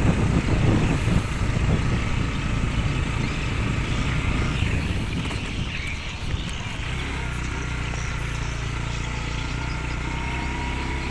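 An engine running steadily with a low, even drone that becomes more settled about six or seven seconds in.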